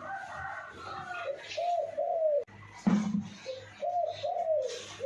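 A dove cooing in runs of short rising-and-falling notes, with a sharp knock about three seconds in.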